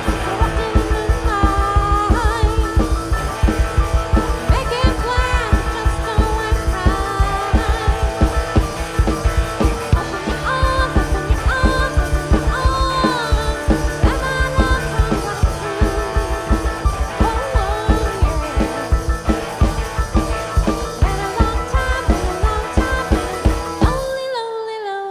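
Live rock band playing: a driving drum-kit beat and bass under an electric guitar lead that bends up and down in pitch. The drums and bass drop out for a moment near the end, then come back in.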